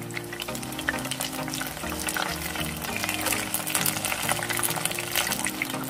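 Battered eggplant pieces deep-frying in hot oil, a dense crackling sizzle as moisture cooks out of the eggplant and makes the oil spit. Background music plays along with it.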